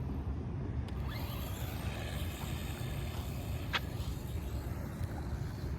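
Jetwood 4WD electric RC buggy driving on its slow setting, its motor whine faint over a steady low rumble, with a brief click about a second in and another near the middle.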